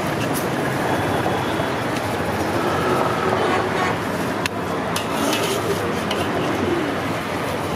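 Steady street traffic noise mixed with the scraping of a perforated iron skimmer stirring popcorn and sand in a wide iron pan, with one sharp knock about four and a half seconds in.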